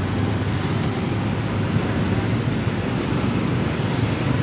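Traffic noise from motorbikes and a minibus idling and pulling away: a steady low engine hum under road noise.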